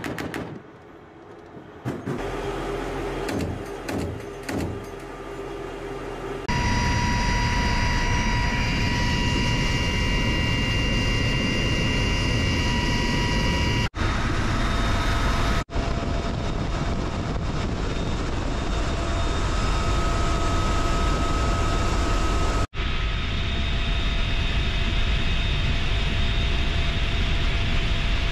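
UH-1Y Venom helicopter heard from inside the cabin: a loud, steady roar of rotor and twin turboshaft engines with high steady whines, starting about six seconds in. Before that, a quieter stretch with a few sharp cracks.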